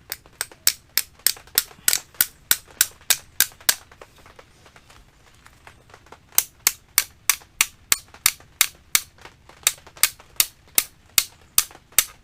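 Brake pad retaining pin being tapped into a motorcycle's rear brake caliper: sharp metal taps, about three a second, in two runs with a short pause between.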